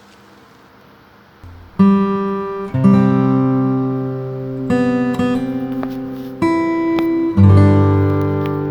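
Background music: acoustic guitar strumming chords, starting after a quiet second and a half, with a new chord struck about every one to two seconds.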